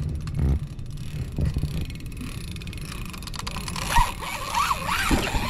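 Wind rumbling on the microphone on an open boat, with a thin wavering whine in the last couple of seconds and a single knock about four seconds in.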